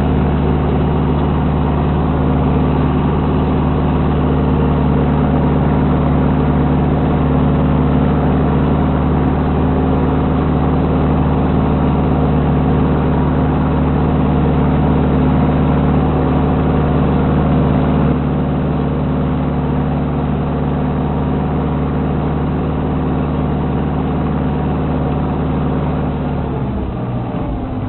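Ursus C-360 tractor's four-cylinder diesel engine running steadily, most likely pulling a plough, and slowing down near the end.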